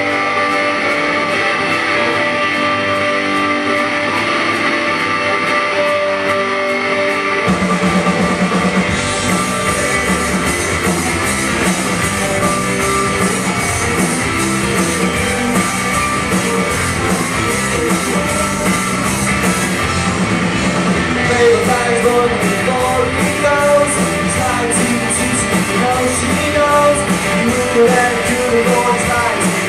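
Live rock band starting a song. Electric guitar plays alone at first, then bass and drums come in about seven seconds in, with cymbals joining soon after, and the full band plays on.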